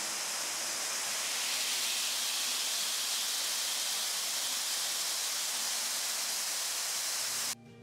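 Steady hiss of artificial rain: water falling from an overhead rain feature and splashing into a shallow pool. It cuts off suddenly just before the end.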